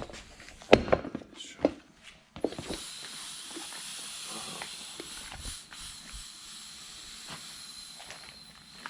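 A few knocks, then air suddenly starts hissing steadily out of an ATV tire through its open valve stem, the tire deflating so the bead can be broken.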